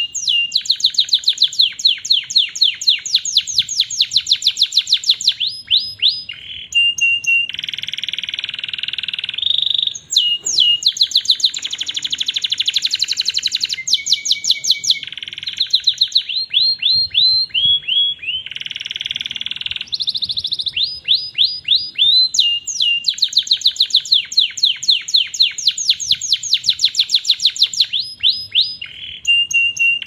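Canary singing a long, unbroken song: fast trills of rapidly repeated falling notes alternating with buzzy rolls and a few short held notes.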